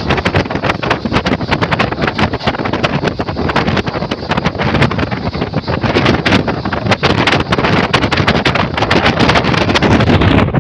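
Moving passenger train running at speed, a loud steady rushing rumble with dense irregular rattling clicks, mixed with wind buffeting the microphone.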